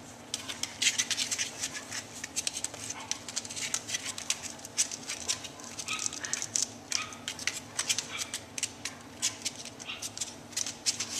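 Young puppies scrabbling in a cardboard box: a quick, irregular patter of small claws scratching on cardboard and cloth.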